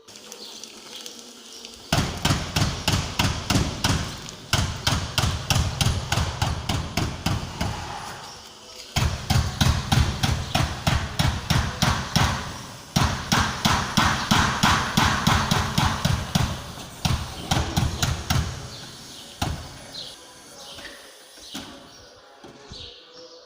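Rapid hammering, about six blows a second, in four runs separated by short pauses, then dying away.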